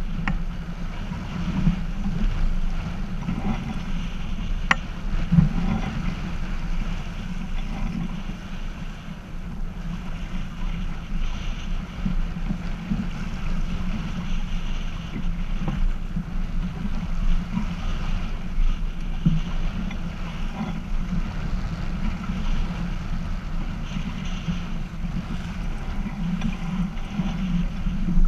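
Wind buffeting the microphone and water rushing along the hull of a Half Ton racing sailboat under sail, with a brief knock about five seconds in.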